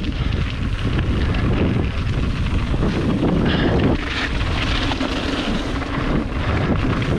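Wind buffeting the camera microphone while a full-suspension mountain bike rides down a trail, with steady tyre rumble over the ground.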